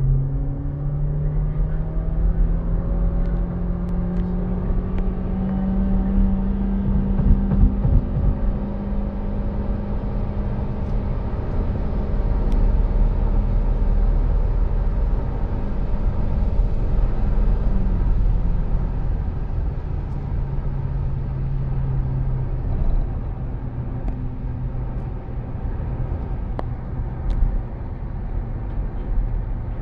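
2002 Honda Civic Ferio's 1.5-litre four-cylinder engine under hard acceleration through its CVT, heard from inside the cabin. The engine note rises over the first few seconds, then holds one steady pitch near 6,000 rpm while the car keeps gaining speed, as a CVT does. About two-thirds of the way through it drops to a lower steady note, with road rumble underneath.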